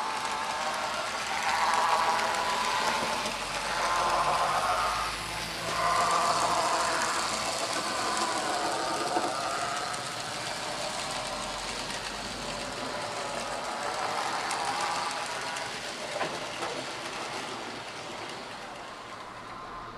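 Graham Farish N gauge model of a Stanier 8F steam locomotive running along the layout track with its coaches: a continuous mechanical whirr and rattle of the model's motor and wheels on the rails, louder in the first several seconds and then easing off.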